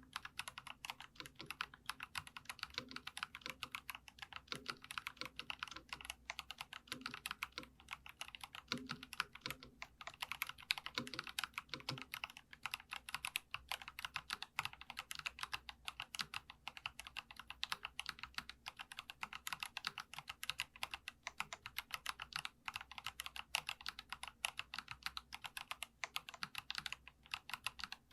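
Fast, continuous typing on a Geekstar mechanical keyboard: a steady stream of light, clacky keystrokes, with a few deeper key thuds in the first half.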